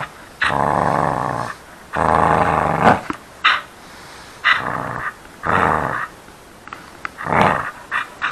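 A dog play-growling while it mouths and shakes a knotted rope toy. The growls come in a string of stretches of about a second or shorter, with short pauses between.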